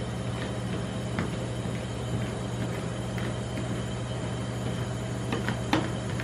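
Metal spatula scraping and tapping on a frozen steel ice-cream plate as the mixture is spread thin, with a few sharper clicks near the end, over a steady low hum.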